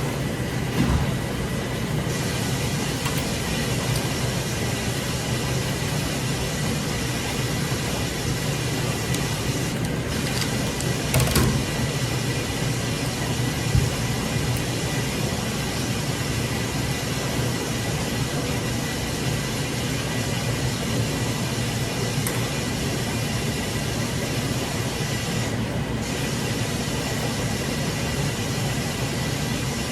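Steady loud mechanical rumble and hiss with a low hum and a faint high steady tone, broken by a brief knock about eleven seconds in and another near fourteen seconds.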